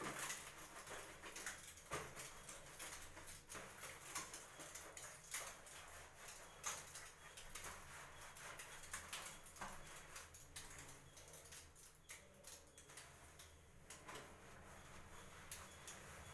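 Hands scrubbing shampoo lather through long wet hair, making faint, irregular wet squishing sounds.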